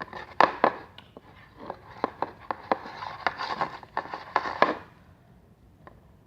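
Sticky, half-activated borax slime being squeezed and pulled by hand, giving a rapid irregular series of wet clicks and crackles that stop about five seconds in.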